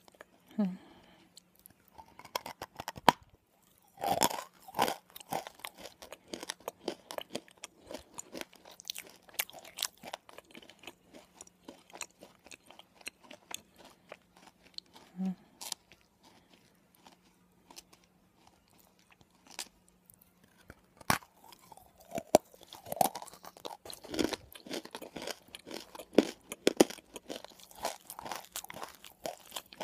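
Close-up mouth sounds of someone crunching and chewing a gritty, crumbly substance ('nakumatt'): dense, irregular crunches and crackles, with louder bursts about four seconds in and again from about twenty-one seconds on.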